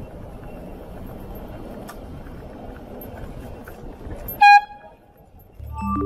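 AirZound bicycle air horn giving one short, very loud blast about four and a half seconds in, over the steady rumble of the e-scooter riding along the road.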